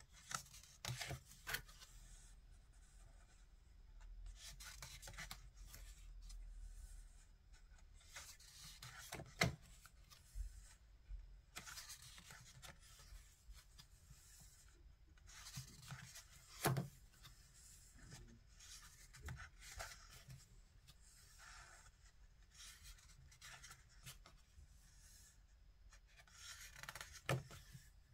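Paper pages of a photo book being turned and smoothed by hand: soft rustling and rubbing of paper, with a few sharper page flips spaced several seconds apart.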